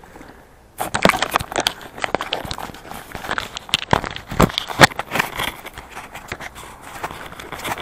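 Close rustling, crinkling and crackling of a wad of tangled monofilament fishing line being handled and balled up in the hands, starting about a second in with many sharp, irregular clicks.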